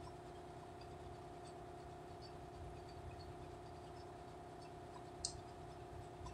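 A steady low mechanical hum with faint scattered ticks, and one sharp click about five seconds in.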